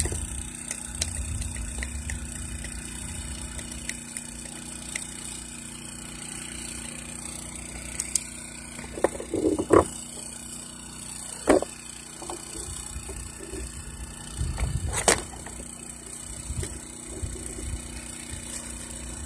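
Handling of a small generator's ignition module on its sheet-metal bracket with a screwdriver: a few scattered clicks and knocks of metal and plastic, the loudest near the middle and about three quarters through, over a low steady rumble.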